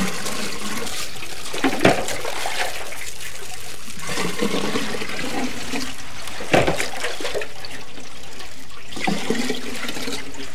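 Water running steadily, with a few brief knocks about two, six and a half and nine seconds in.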